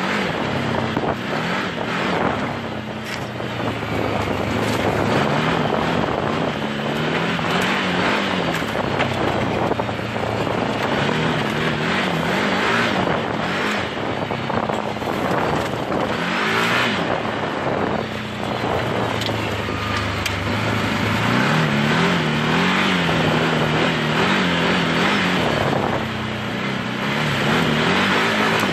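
Turbocharged Rotax V-twin engine of a Can-Am Maverick 1000R Turbo X ds side-by-side running under way, its pitch rising and falling again and again with the throttle. A steady noisy rush of driving runs beneath it.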